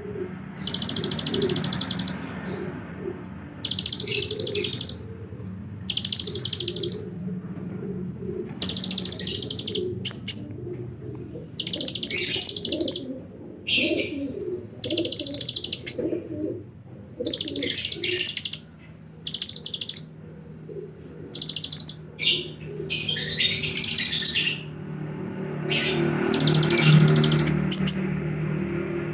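Caged purple-throated sunbird (kolibri ninja) singing in high, buzzing trills of a second or two each, repeated every two seconds or so, in song imitating bren cicadas and bar-winged prinias (ciblek). A low droning sound swells in the background near the end.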